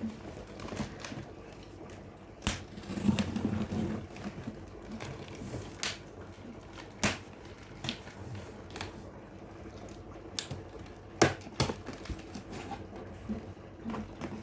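Hands handling a laptop's cardboard box and packaging: scattered sharp clicks and knocks, with a stretch of rustling about three seconds in.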